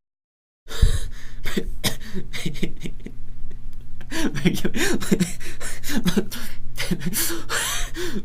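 A person laughing in quick breathy bursts, becoming fuller voiced laughter about halfway through.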